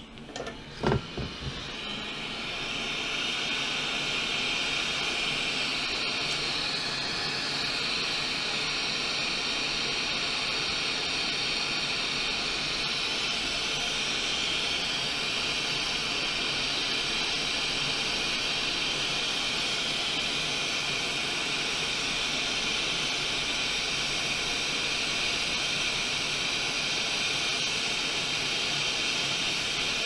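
Hot air from a rework station blowing a steady hiss onto solder paste on a new graphics-card power connector's pins, heating it to reflow. The hiss comes up about two seconds in after a couple of light knocks, then holds steady.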